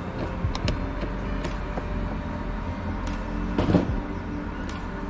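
Scattered light clicks and taps of plastic dashboard trim and tools being handled in a car's interior, over a steady low hum.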